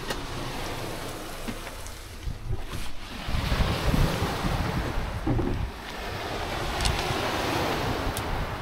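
Wind blowing across the microphone, with gusty low buffeting that picks up about three seconds in and eases a few seconds later.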